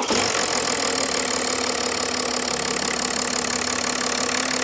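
BMW G30's diesel engine idling steadily, moments after start-up.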